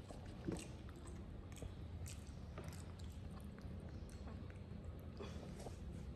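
Baby monkey chewing food: irregular short smacking clicks, one sharper click about half a second in.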